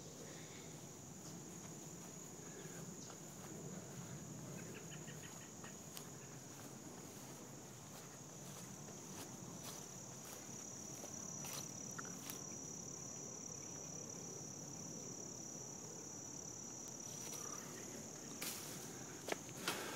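Steady high-pitched chorus of chirping insects in the open air, with a few sharp clicks near the end.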